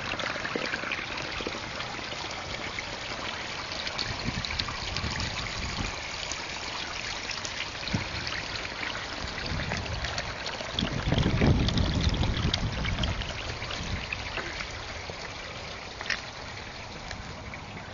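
Garden water feature, a thin stream of water falling and trickling into a pool, splashing steadily and getting fainter near the end. A low rumble comes in about two-thirds of the way through.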